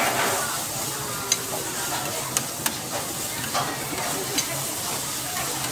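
Noodles and vegetables sizzling on a flat-top griddle while two metal spatulas stir and scrape them across the hot plate, with a few sharp clinks of metal on metal.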